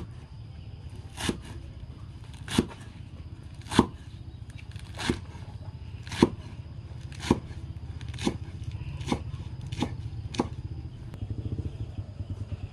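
Steel cleaver chopping leafy greens on a thick wooden chopping block: about eleven single chops a little over a second apart, coming quicker toward the end, over a steady low hum.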